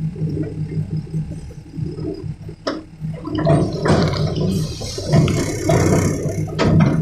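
Cat excavator's diesel engine running steadily, with a sharp knock about a third of the way in and loud bursts of rushing, rattling noise in the second half.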